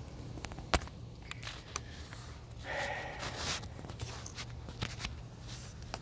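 Phone handling noise: scattered sharp clicks and a brief rustle as the phone is fingered and refocused, the loudest click a little under a second in, over a steady low hum.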